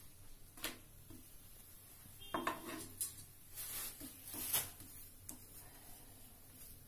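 A spatula taps and scrapes against a frying pan in a handful of short, light knocks as a flatbread is pressed and turned while it cooks lightly.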